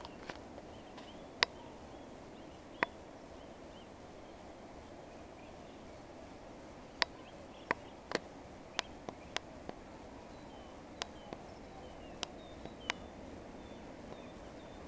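Faint, distant bird chirps over steady background noise, broken by about fifteen sharp clicks at irregular intervals, the clicks being the loudest sounds.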